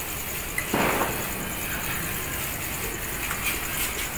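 Powder of an unwrapped Diwali 'atom bomb' firecracker burning: a short burst of hissing about a second in, then fizzing with a few faint crackles as sparks spray from it.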